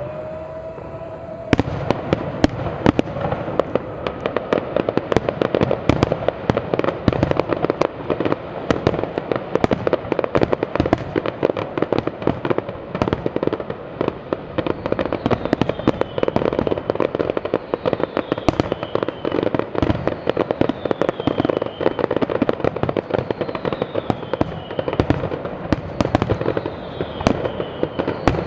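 Fireworks display finale: a dense, continuous barrage of bangs and crackling shells, thickening sharply about a second and a half in. High falling whistles cut through now and then in the second half.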